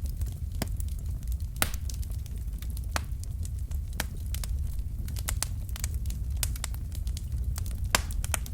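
Wood fire of burning logs crackling, with a steady low rumble of flames under irregular sharp pops and snaps; the loudest pops come about a second and a half in and near the end.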